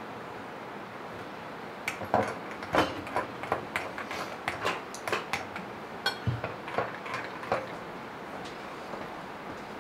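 Spoons and cutlery clinking and tapping against cups and bowls at a breakfast table: a run of light, irregular clinks starting about two seconds in and dying away near the end.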